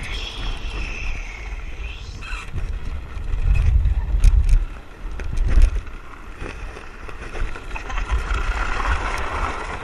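Land yacht running across beach sand: wind rumbling in gusts on the GoPro's microphone, strongest around the middle, with scattered clicks and rattles from the cart and sail rig.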